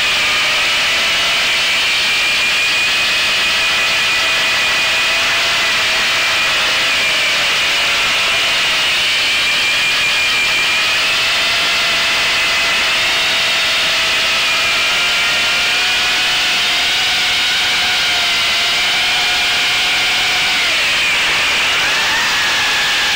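On-board sound of a radio-controlled model airplane's motor and propeller in flight: a steady, loud whine over wind rush, its pitch drifting slightly, then dipping and climbing again near the end.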